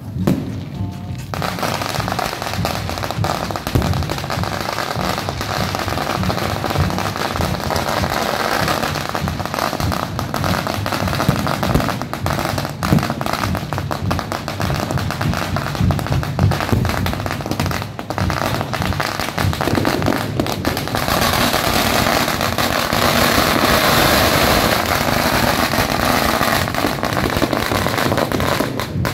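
Aerial fireworks and firecrackers going off in a dense, unbroken crackle of pops and bangs. It grows thicker and louder about two-thirds of the way through.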